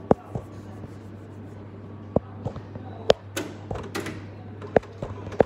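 Irregular sharp knocks and clicks, about eight of them, over a steady low hum.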